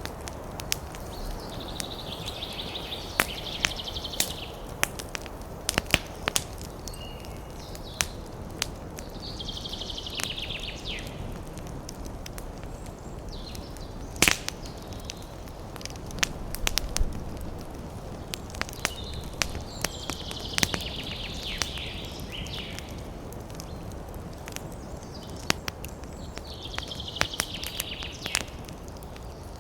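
Wood fire crackling in a fireplace: a steady low rumble of flames with frequent sharp snaps and pops, one much louder pop about halfway. A brief higher hiss rises and fades four times.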